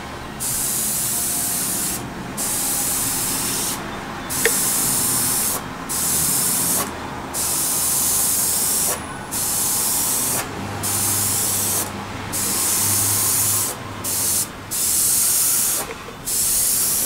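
Sata Graph 3 airbrush (0.2 mm nozzle) spraying transparent auto paint in a string of hisses, about eleven in all, each cut off briefly as the trigger is let go and then pressed again.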